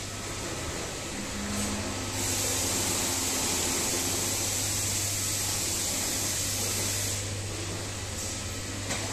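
Steady ambient noise of a garment factory floor: a constant low hum under an even hiss, with a brighter hiss swelling for about five seconds in the middle.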